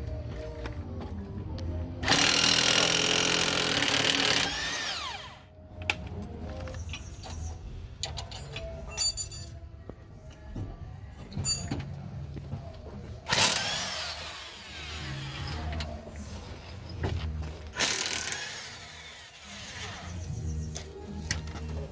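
Power impact wrench run in three bursts of about two seconds each, working the bolts of a car's front wheel hub being replaced, each burst whining down in pitch as it stops. Background music plays underneath.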